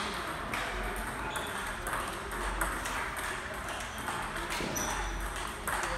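Celluloid-style plastic table tennis balls clicking off paddles and tabletops, many irregular sharp ticks from play on several tables at once.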